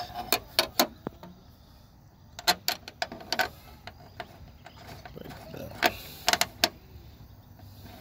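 Light metal clicks and taps in three short clusters, from a steel striker reinforcement plate and its bolts being handled and fitted against a pickup truck's door.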